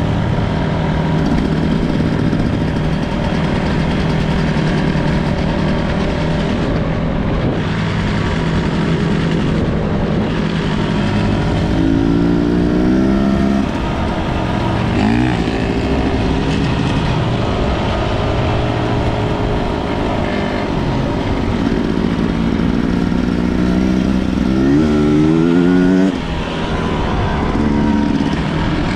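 250 cc enduro motorcycle engine running under load on a trail ride, rising in pitch several times as the throttle is opened, with brief drops about halfway through and near the end as the throttle is rolled off.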